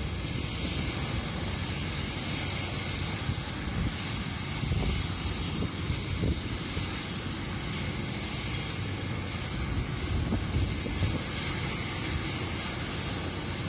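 Rescue helicopter running on the ground: a steady high turbine whine over the rumble of the turning rotor.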